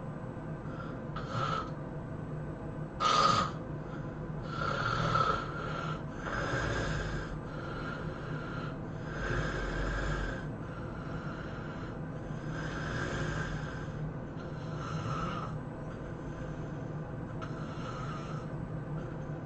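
A person snoring in sleep, noisy breaths swelling and fading about every two to three seconds, with one short, louder snore about three seconds in. A steady low hum runs underneath.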